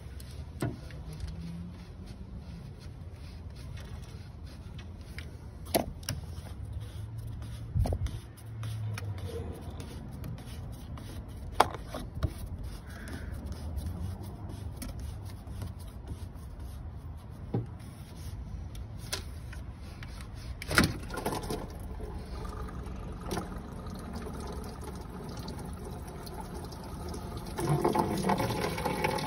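Hand tools and fittings clicking, knocking and scraping against parts around the thermostat housing of a 2010 Vauxhall Corsa engine, with a handful of sharp clicks spread through. Near the end a louder, rougher stretch of scraping noise comes in.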